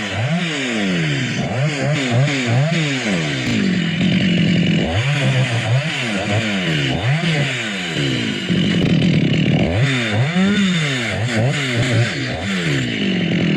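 Two-stroke chainsaw cutting coconut palm wood. The engine is blipped up and down rapidly, then held at full speed for a second or two at a time, several times over.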